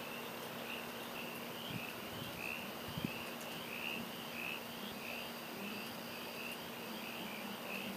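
Faint night chorus of calling animals: a high-pitched pulsing call repeating about twice a second, over a faint steady low hum, with one soft thump about three seconds in.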